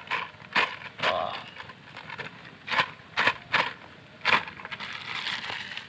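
Thin plastic bag crinkling in a string of short, sharp crackles as it is squeezed and shaken to empty it into a bowl.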